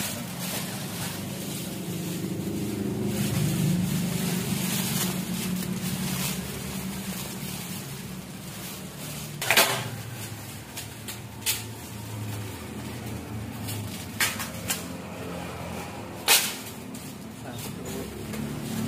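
Plastic packaging rustling and crinkling as a black plastic mailer bag and plastic-wrapped barber tool packs are handled, with about five sharp knocks in the second half as items are set down on a wooden table.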